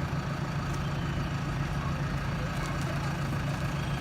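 JCB backhoe loader's diesel engine running steadily, a low even drone.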